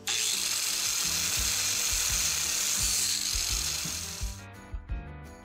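Corded angle grinder with a wire brush wheel scrubbing mill scale off a steel flat bar. The loud, steady scrubbing starts suddenly and dies away a little after four seconds in, over background music.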